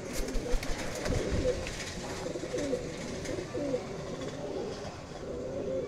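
Several domestic pigeons cooing steadily, their calls overlapping, with a few low thumps in the first second and a half.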